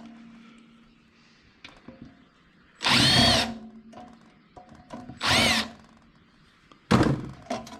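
Cordless drill-driver backing screws out of a centrifuge housing in three short bursts, each whirring up and then winding down, with small clicks of handling between them.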